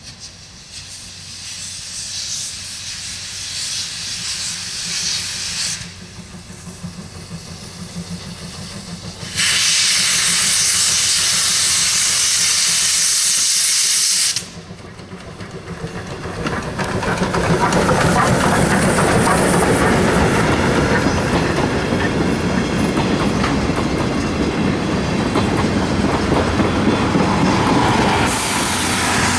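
C58 steam locomotive approaching and passing with steam hissing. A much louder hiss of steam comes on suddenly about nine seconds in and cuts off about five seconds later. Then the 12-series coaches run by with a steady rumble and wheel clatter on the rails.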